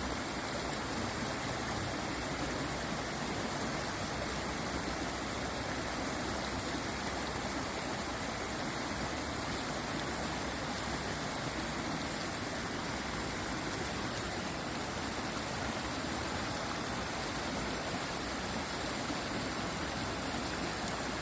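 Running water rushing steadily, with no change in level.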